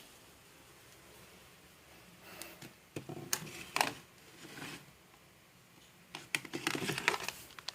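Scattered sharp clicks, taps and rustling, as of hard objects being handled, in a cluster about three seconds in and a denser run of rapid clicks about six to seven seconds in.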